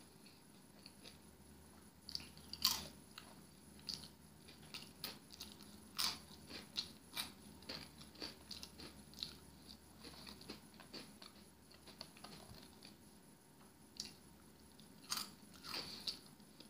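Flaming Hot Cheetos being bitten and chewed: irregular sharp crunches with quiet gaps between them, the loudest a few seconds in.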